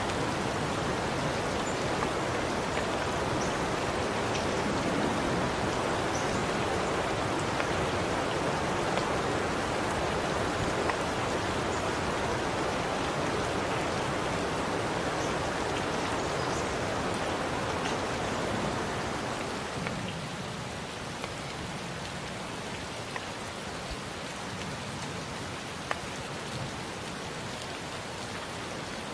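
Steady rain falling, with scattered drops ticking on a surface. The rain eases a little about two-thirds of the way through.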